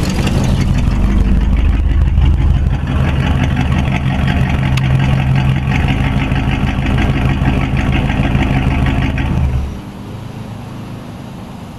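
An engine running steadily and loudly, cutting in suddenly and dropping off about nine and a half seconds in, leaving a quieter steady hum.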